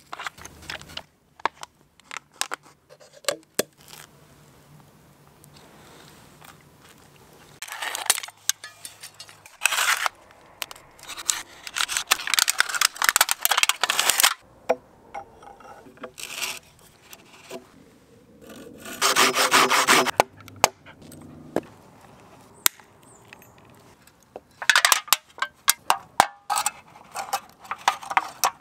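Hand-crafting sounds on wood: several bursts of scraping and rubbing a few seconds long, with scattered taps and clicks and quieter gaps between them.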